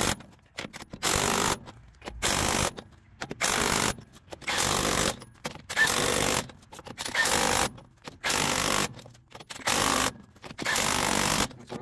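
Cordless impact wrench hammering truck wheel lug nuts tight, in about ten short bursts of roughly half a second each, one nut after another.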